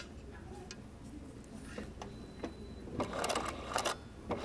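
A domestic sewing machine runs a short quick burst of stitches about three seconds in, stitching silk ribbon to hooped fabric. Before that it is mostly quiet, with a sharp click at the start and a few light clicks.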